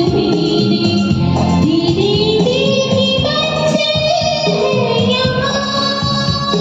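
Music of a Hindi film song played over a karaoke backing track, with one sustained melody line climbing in pitch over the first few seconds, then holding higher notes.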